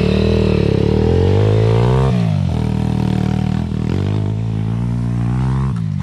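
KAYO pit bike's single-cylinder four-stroke engine running and being revved up and let off about three times, its pitch rising and then dropping. This is the engine that has developed a foreign rustling noise: the rider first blamed the muffler rubbing on the frame and later suspects the timing-chain tensioner.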